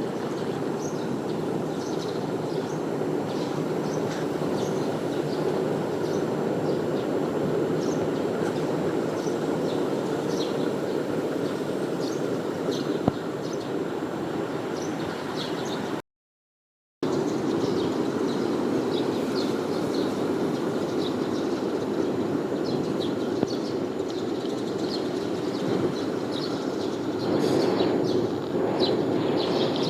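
Small birds chirping again and again over a steady low rushing noise, whose source is not shown. The sound cuts out completely for about a second just past halfway.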